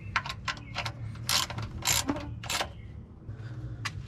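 Spin-on oil filter being unscrewed by hand from a Toyota engine: a few light clicks, then three short rasping scrapes about half a second apart as it turns, and more clicks near the end. A steady low hum runs underneath.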